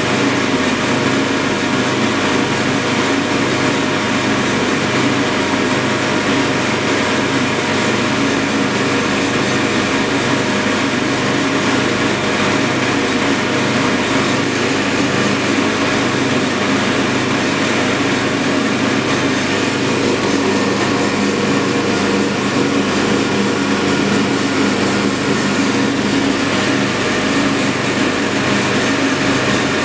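Cooling blower of an air-cooled argon-ion laser (ALC68) running steadily: a loud, even rush of air with a hum underneath that throbs slightly.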